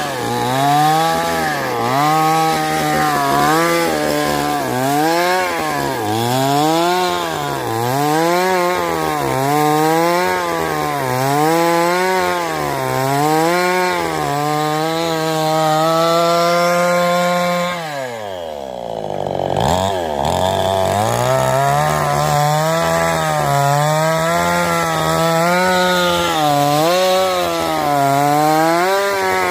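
Shimura two-stroke chainsaw running hard while cutting wood, its engine note rising and falling about once a second. About two-thirds of the way through, the revs fall sharply for a second or two, then climb back up.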